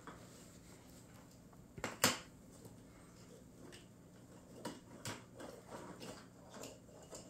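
Knocks and light clatters of a small plastic tube on a hardwood floor as a kitten bats, bites and kicks it. The sharpest knock comes about two seconds in, with a few lighter taps later, over a faint steady hum.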